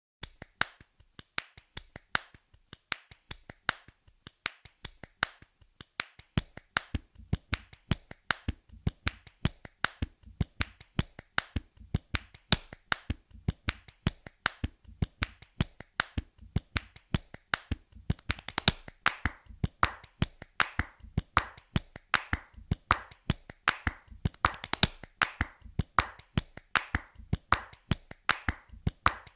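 Hand clapping in a steady rhythm, about three to four claps a second, getting louder and busier a little past halfway.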